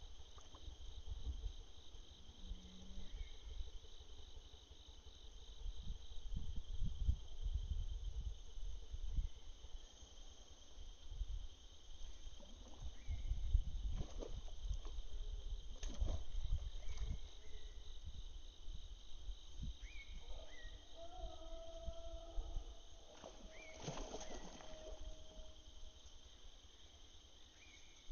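Insects chirring steadily in a high, pulsing drone, with low rumbles on the microphone and a few short bird chirps.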